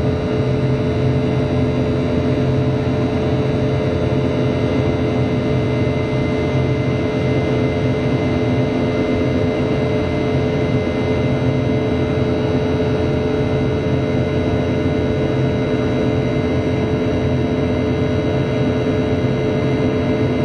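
Rolls-Royce BR715 turbofan of a Boeing 717-200, heard inside the cabin from a seat beside the rear-mounted engine during the climb after takeoff. It makes a loud, steady drone with several steady tones over the rush of air: the buzzsaw sound of the fan at climb thrust.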